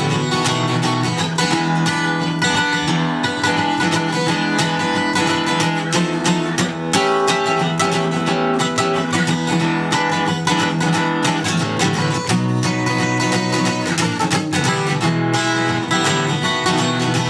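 Guitar strummed in a quick, steady rockabilly rhythm: an instrumental passage with no singing.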